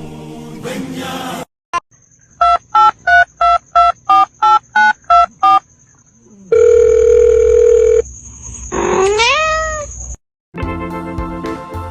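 A run of about eleven short electronic beeps, like telephone keypad tones, followed by a steady tone lasting about a second and a half and then a quick rising whistle-like glide. Background music plays briefly at the start and comes back near the end.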